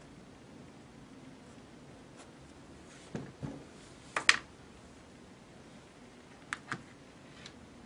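A pen being handled and set down on a paper pad on a wooden desk: a couple of light knocks about three seconds in, sharp clicks a second later, then two more quick clicks and a faint one near the end.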